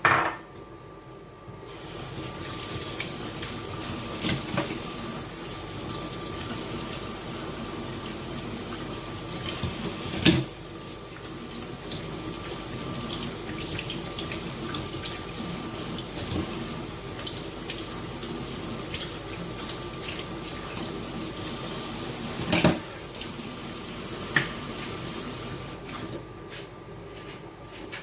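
Kitchen tap running into a sink, likely rinsing the cleaned shrimp: the water starts about two seconds in and shuts off near the end. A few sharp knocks, like a dish or utensil set against the sink, come through it, the loudest about ten seconds in and again past twenty seconds.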